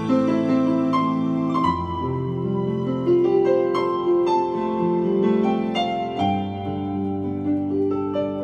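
Digital keyboard played with both hands in a piano-like voice: a slow melody of overlapping held notes over sustained bass notes, the bass changing about two seconds in and again near six seconds.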